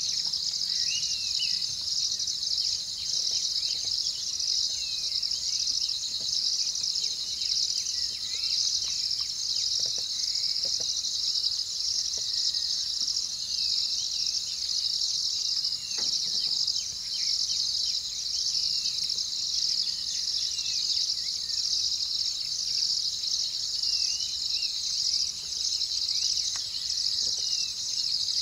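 Dense chorus of night insects such as crickets, a high-pitched trilling that pulses steadily without a break, with faint short chirps over it.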